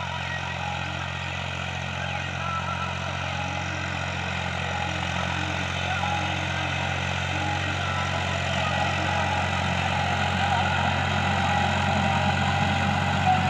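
Massey Ferguson 260 tractor's three-cylinder diesel engine running at a steady pace under load, pulling a disc harrow. It grows slowly louder as the tractor comes closer.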